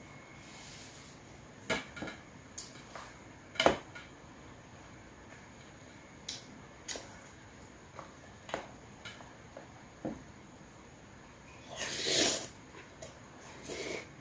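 A wooden spoon and chopsticks clicking and knocking against a large stainless-steel mixing bowl as bibimbap is stirred and scooped, in scattered single strikes. A longer noisy scrape of about half a second comes near the end.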